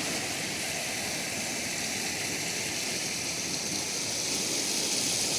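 Steady rush of a river running high after heavy overnight rain, growing slightly louder near the end.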